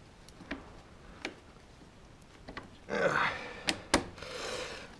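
A Kawasaki Z750's aftermarket exhaust silencer being worked loose from its mounting bracket by hand: a few light metal clicks, then two sharp knocks of metal on metal about four seconds in, between brief rustling noises.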